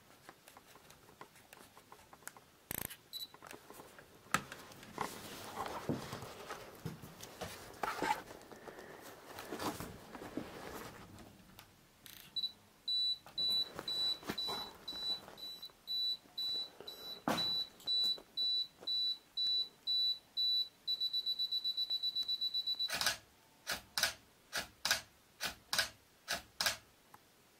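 Canon DSLR self-timer counting down: a high beep pulsing about one and a half times a second, speeding into rapid beeps for the last couple of seconds, then a run of about eight shutter clicks half a second apart. Before it come scattered footsteps and handling knocks.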